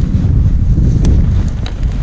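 Wind buffeting the microphone as a loud, steady low rumble, with a few faint clicks about a second in and near the end.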